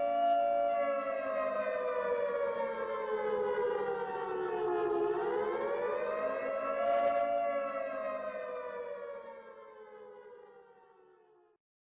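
A siren wailing: one long pitched tone that slowly sinks, swells back up about six seconds in, then sinks and fades out near the end.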